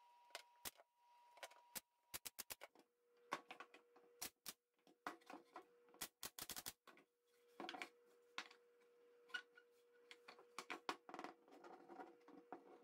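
Sharp, irregular clicks and knocks as wooden box parts are set together and fastened with a pneumatic nailer, with quick runs of clicks about two and six seconds in. A faint steady tone hums underneath and drops in pitch about three seconds in.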